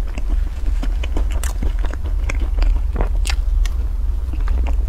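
Close-miked mouth sounds of eating a soft cream cake from a spoon: chewing with many small wet clicks and smacks, and the spoon scraping the paper box, over a steady low hum.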